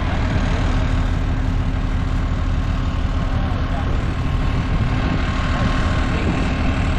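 An engine running steadily at idle, a low, even rumble with no change in speed.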